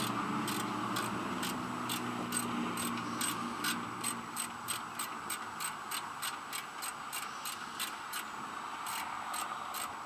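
Ratchet wrench clicking in repeated strokes, about two to three sharp clicks a second, thinning out in the middle and bunching again near the end, as a bolt is worked loose on a riding mower's engine. A low hum fades out in the first few seconds.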